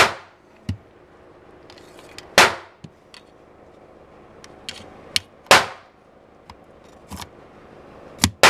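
Gunshots on a shooting range: four loud, sharp reports roughly two and a half to three seconds apart, each with a short echoing tail. Lighter clicks and clinks fall between them.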